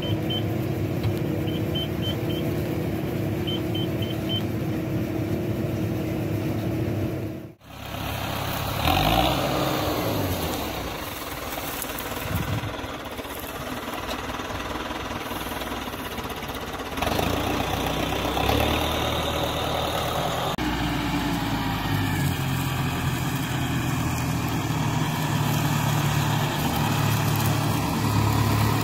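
Tractor diesel engines running through several cuts. First comes a steady drone while a Deutz-Fahr round baler is towed, with short electronic beeps in threes. Then a tractor works a front loader lifting straw round bales, its engine rising and falling under the load.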